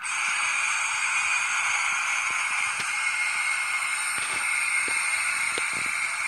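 Sound decoder in an Acme model of an FS E402B electric locomotive, playing through its small onboard speaker a steady rushing hiss sampled from a real E402 locomotive. The hiss comes on suddenly and holds at an even level.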